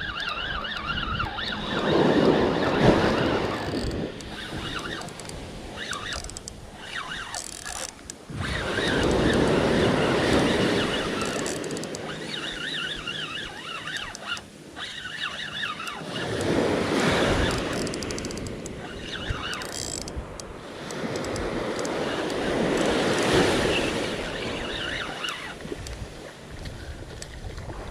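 Ocean surf breaking on a sandy beach: four swells of wave noise, one about every six to seven seconds, with wind on the microphone.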